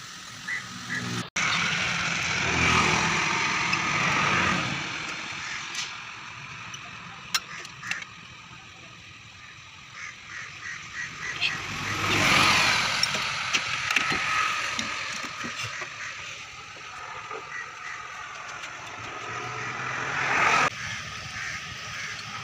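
Motor vehicle noise that swells and fades three times, with scattered light clicks and knocks.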